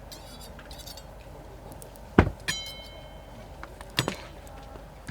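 Camp cookware knocking and clinking: light clicks at the start, a heavy knock about two seconds in followed by a clink that rings briefly, and another knock near four seconds.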